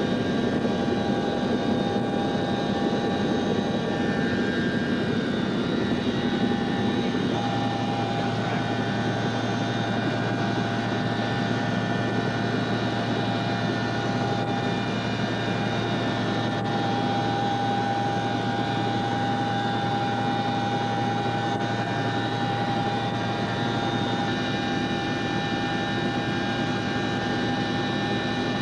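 A CH-47 Chinook helicopter's engines, rotors and transmission drone steadily, heard from inside the cargo cabin, with a steady whine of several tones over it. About seven seconds in, the lower part of the drone shifts to a steadier, deeper hum.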